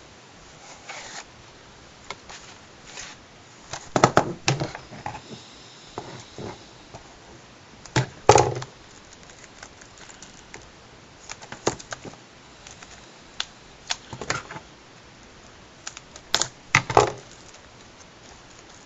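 A Blu-ray combo pack's plastic case and packaging being unwrapped and opened: scattered clicks, crinkles and handling noises, with louder bursts about 4, 8 and 17 seconds in.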